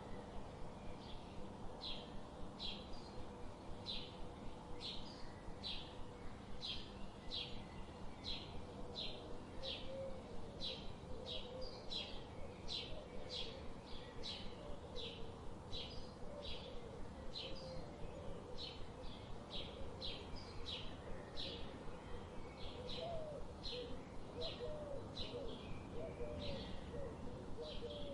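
Songbird repeating a short, high chirp about twice a second in a steady rhythm, over a faint steady background hiss. Lower wavering bird notes join in about ten seconds in and again near the end.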